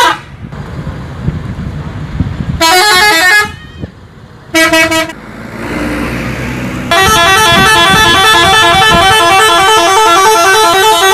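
Tour buses' multi-tone musical horns (telolet horns) playing quick melodies that hop between pitches: a short burst about two and a half seconds in, another about four and a half seconds in, then a long, unbroken melody over the last four seconds. Low engine and road rumble from the passing buses fills the gaps.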